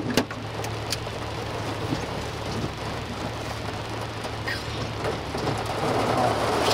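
Heavy rain drumming on a vehicle's roof and windows heard from inside the cabin, over a steady low hum, with a few sharp ticks in the first second. Near the end a louder rush of water as a pickup truck drives through floodwater alongside.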